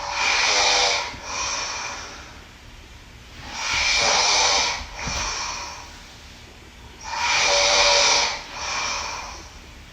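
A person snoring in a strange, hissing way, with a faint whistle in it. Three breath cycles, each a long loud snore followed by a shorter, softer one.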